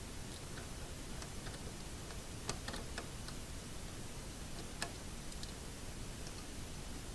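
Scattered light metal clicks and taps of a small screwdriver and Torx screws being fitted into the printer's heatbed and Z-axis brackets. Two sharper clicks stand out, about two and a half and nearly five seconds in, over a steady low hiss.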